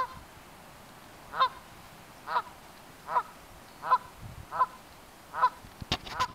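Canada goose honking, about eight separate calls spaced less than a second apart, with a quick cluster of sharp slaps near the end.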